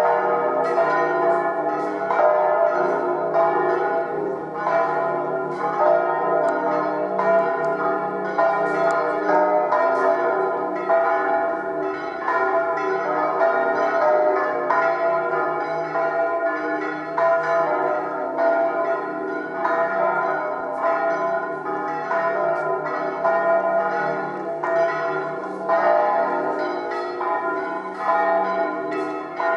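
Five bronze church bells from San Rufino Cathedral's six-bell ring in E-flat, electrically swung together in a continuous festive peal (a 'distesa'). Their strokes overlap steadily in a dense clangour.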